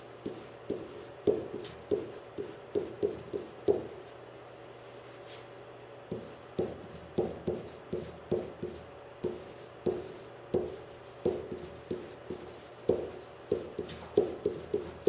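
A pen writing on a whiteboard: a quick, irregular run of short taps and strokes as equations are written, pausing for about two seconds a little after the start, then carrying on.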